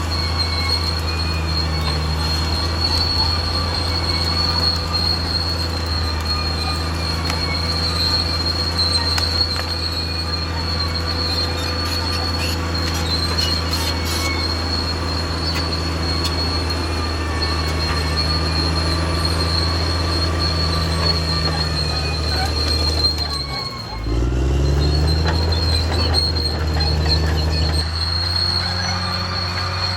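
Caterpillar D6R XL bulldozer's diesel engine running steadily under work, with a constant high-pitched whine over it. About three quarters of the way through, the engine note sags and dips, then climbs back up.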